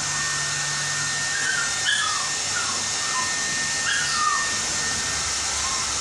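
An electric dog-grooming dryer blowing steadily with a loud high hiss, while a dog gives short, high whining cries several times over it.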